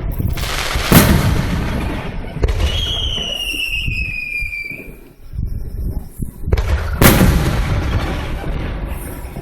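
Fireworks shells bursting: two loud booms about six seconds apart, each followed by a low rumbling echo. Around the middle comes a high whistle that slides slightly down in pitch.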